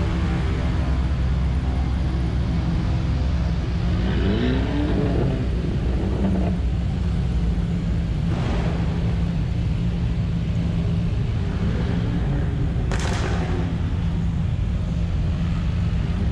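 Engines of modified show cars idling and running steadily as they drive slowly out past the camera inside a large exhibition hall. Two short louder bursts come about eight and thirteen seconds in.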